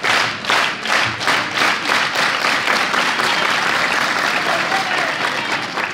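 Audience applauding in a large hall. Separate close claps stand out at first, then merge into steady applause that eases slightly near the end.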